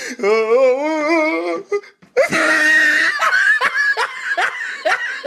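Someone laughing hard: a wavering, drawn-out laugh, a brief break about two seconds in, then a louder, breathy run of repeated laughs.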